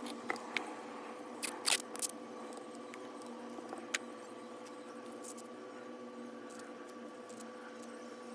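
A few small clicks and light scrapes of hand tools working on a smartphone, several in a cluster about two seconds in and one more near the middle, over a steady electrical hum.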